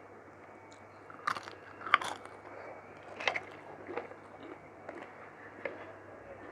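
A person chewing a mouthful of mutton curry with rice close to the microphone, with a string of sharp crunches and mouth clicks, the loudest about two seconds in.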